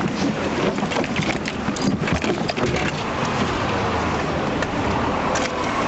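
Scuffle in a police car's back seat: clothing rustling and irregular knocks and bumps as an officer holds and restrains a man, busiest in the first half, then settling into a steadier rush of noise.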